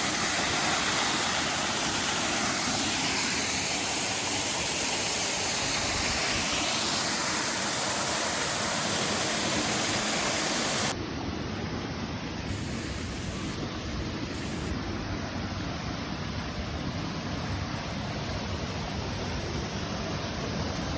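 Waterfall rushing, a steady, dense wash of falling water. About eleven seconds in it drops suddenly to a quieter, duller rush.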